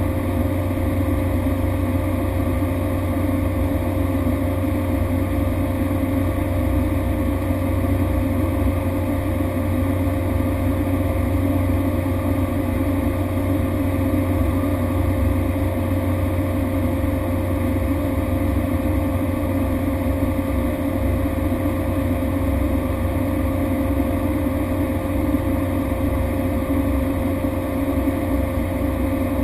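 Cessna Grand Caravan's single turboprop engine and propeller running steadily in flight: a constant low drone with a steady whine above it and a rush of airflow noise.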